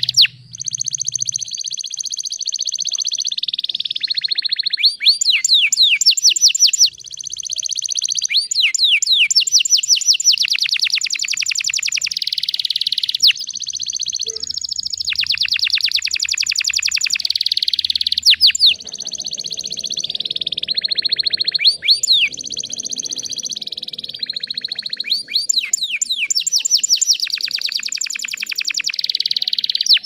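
Domestic canary singing a long, nearly unbroken song of rapid trills, mixed with several runs of fast downward-sweeping notes, with brief breaks between phrases.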